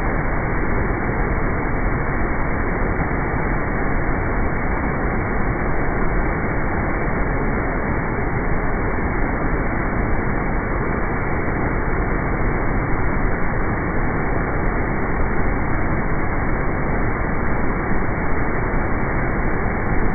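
Iguazu Falls heard up close: a loud, steady rush of falling and churning water that does not change.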